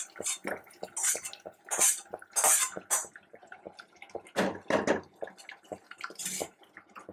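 Fried onions being tipped from a metal oil pan into a pot of boiling sambar: irregular scrapes and knocks of metal on the pan over the bubbling liquid.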